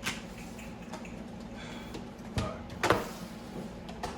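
Two sharp knocks about two and a half and three seconds in, with a small click at the start, from PC parts and packaging being handled, over a steady low hum.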